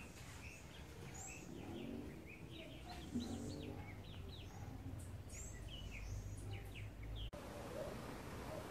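Small birds chirping and calling, many short quick downward-sweeping chirps over faint background noise. About seven seconds in the sound changes abruptly to a steady hiss.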